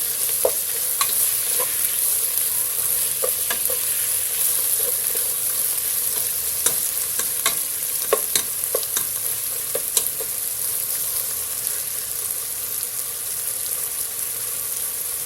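Sliced chicken sizzling as it sautés in a hot pan, with a steady high hiss. A utensil clicks and scrapes against the pan as it is stirred, mostly in the first ten seconds.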